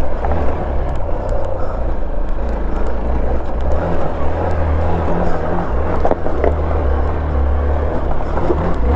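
Motorcycle engine running under load while climbing a rocky dirt trail, a steady low rumble that swells and eases. Faint ticks of stones are scattered through it.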